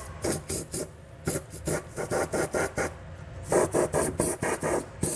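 Aerosol can of black enamel spray paint sprayed in short, quick spurts, about three or four a second, in two runs with a short pause near the middle, coating the bare metal of freshly drilled holes against rust.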